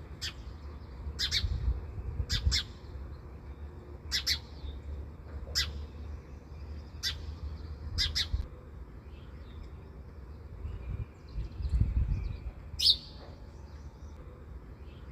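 Bird chirping: short, sharp, high calls repeated every one to two seconds, over a low background rumble.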